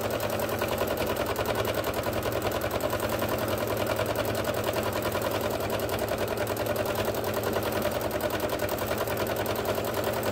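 Domestic sewing machine running steadily at speed for free-motion quilting, its needle stitching through a cotton-and-batting quilt sandwich under a darning foot in a fast, even clatter.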